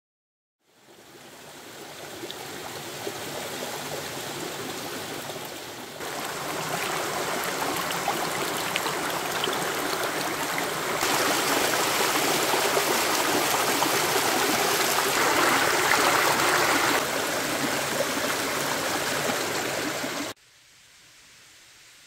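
Small mountain stream running over rocks: a steady rush of water that fades in at the start and grows louder in steps. It cuts off suddenly near the end, leaving only a faint hiss.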